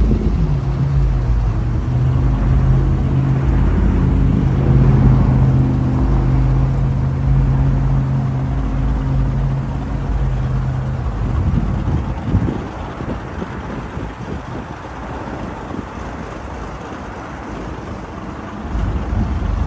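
Car engine running with a steady, even drone that settles in pitch in the first second and holds for about eleven seconds, then drops away, leaving a rougher rumble with wind on the microphone.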